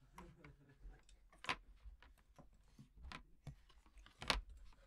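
A few sharp clicks and knocks of small objects being handled on a table, the loudest about a second and a half in and again near the end, with faint handling noise between.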